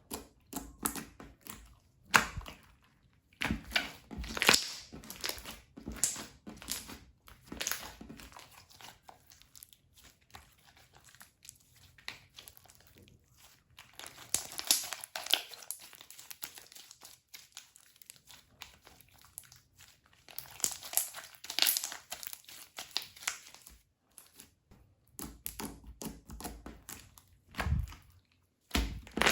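Hands kneading and stretching slime: irregular bursts of sticky, crackling noise with sharp little clicks and pops, and quieter pauses between the bursts.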